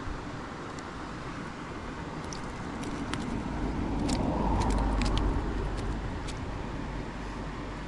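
Steady rush of creek water with a road vehicle passing, its rumble swelling over a few seconds and fading again. A scatter of light clicks comes from the lure's snap swivel being handled as the trout is unhooked.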